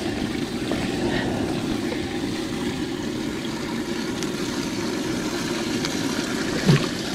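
A boat's motor running steadily.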